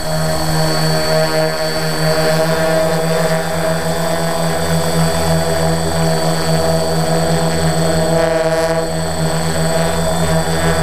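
Multirotor drone's electric motors and propellers running in flight, a steady droning hum of several tones with a thin high whine on top, heard close up from the camera carried on the drone.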